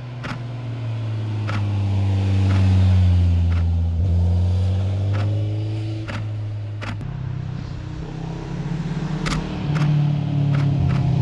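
Motor vehicles passing through a road bend: one engine swells, then drops in pitch as it goes by about four seconds in, and a second comes in louder toward the end. Sharp camera shutter clicks sound every second or two.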